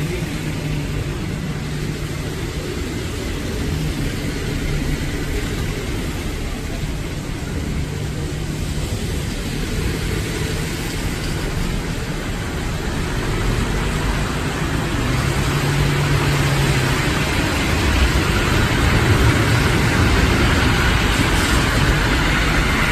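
City street traffic on a wet road: a steady wash of vehicle noise with a low engine hum, growing louder in the second half as cars pass.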